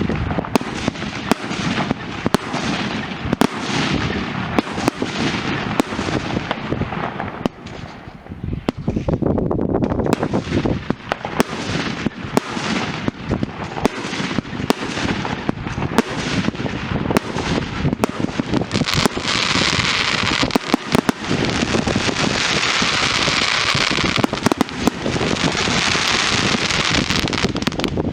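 Fireworks going off in a dense, continuous run of sharp bangs and crackles. From about two-thirds of the way in, a steady hissing rush lies under the bangs for several seconds.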